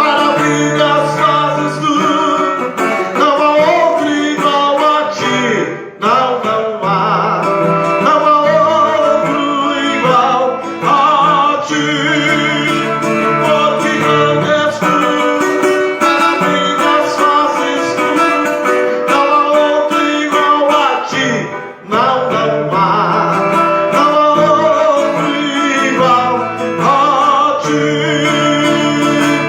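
Acoustic guitar playing an instrumental passage of a worship song, a melody over chords, with two brief breaks about six seconds in and again near twenty-two seconds.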